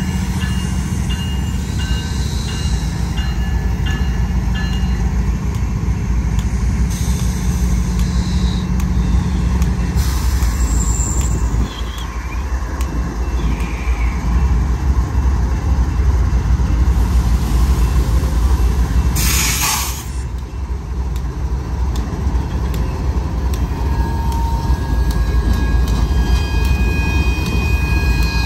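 A GE ES44AC and ES44DC diesel-electric locomotive pair rolls slowly past at a road crossing, with a heavy, steady engine and rail rumble. A short hiss cuts in about two-thirds of the way through.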